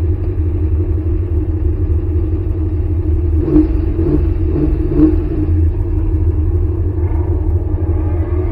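Chevrolet small-block V8 of a C4 Corvette running at idle with a steady low rumble, heard from inside the cabin, with a few short knocks between about three and five seconds in.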